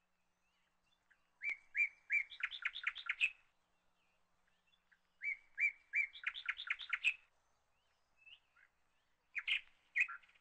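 A bird singing: a phrase of a few separate notes that runs into a quick series of rising notes, sung twice about four seconds apart, with a third phrase starting near the end.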